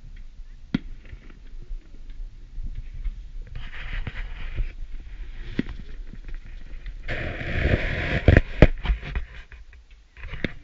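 Fireworks going off: scattered sharp bangs and pops, with two stretches of hissing noise, the second starting about seven seconds in. A cluster of louder bangs follows it.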